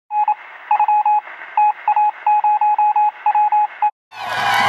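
A single-pitched electronic beep keyed on and off in short and long pulses over a hiss of static, like Morse code heard over a radio. About four seconds in it cuts off and a crowd sound begins.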